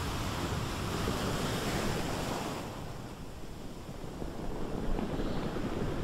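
Sea surf washing onto the shore, with wind on the microphone. The rush is strongest at first, eases about halfway through and builds again.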